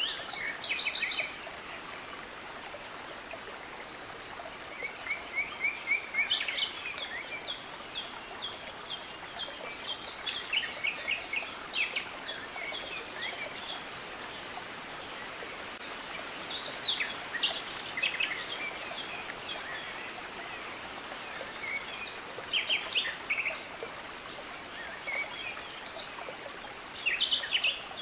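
Steady rush of flowing stream water with birds calling over it: clusters of quick chirps and a fast, even run of high notes come back every few seconds.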